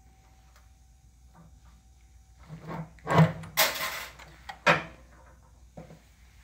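Sheet copper being handled and slid on the bed of a foot-operated squaring shear: a cluster of scraping, rattling metal clanks from about two and a half to five seconds in, ending with one sharp knock.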